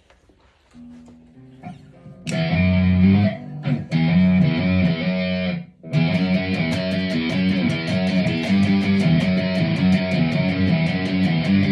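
Jackson JS32T King V electric guitar through a Marshall Code 50 amp on its Classic Metal preset. A few quiet notes lead into loud distorted chords about two seconds in, with two short breaks. Then a steady, fast picked rhythm runs on.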